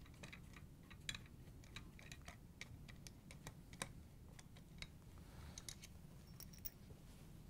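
Faint, irregular metal clicks and ticks from a flathead screwdriver turning out the screws of a stand mixer's gear housing.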